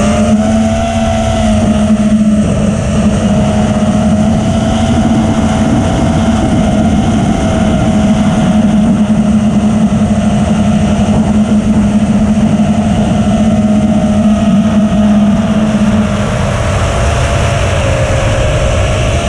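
Brushless motors of a 5-inch FPV racing quadcopter (iFlight Xing 2207 1800KV) whining at a steady cruising throttle, with heavy wind rush over the onboard GoPro's microphone. The pitch sags slightly near the end as the throttle eases.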